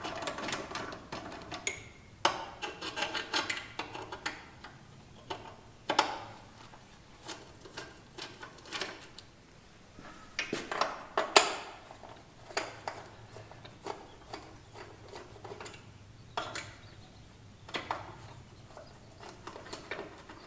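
Scattered clicks, knocks and scrapes of hand-tool work on metal: a star wrench backing out the screws that hold a miter saw's fence, and the fence being worked loose, with a sharper clack about eleven seconds in.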